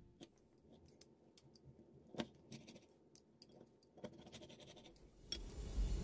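Faint clicks and scrapes of a serving utensil against a ceramic plate as a portion of the steamed pork and bean sprouts is lifted out, with one sharper click about two seconds in.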